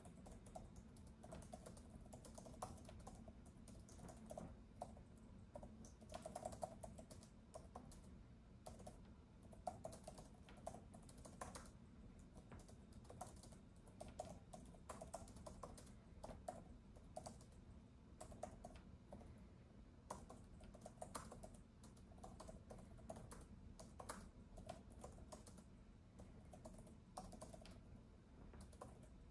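Quiet, continuous typing on a keyboard used with an iPad: soft key clicks in irregular runs and pauses, over a low, steady background hum.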